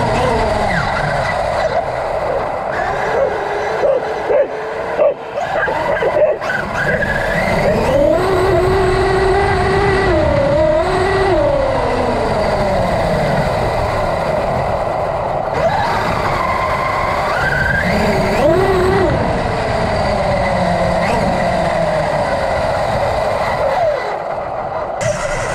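Traxxas UDR radio-controlled truck driving over grass, heard from a camera on board. Its brushless electric motor and drivetrain whine rises and falls in pitch again and again as the throttle comes on and off, over a steady rumble of tyres and chassis. There are a few knocks from bumps in the first several seconds.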